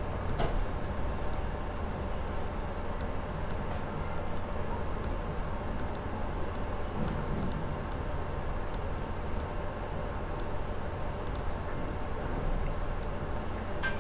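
Computer mouse clicking: light, sharp clicks at uneven intervals, about twenty in all, over a steady low hum and room noise.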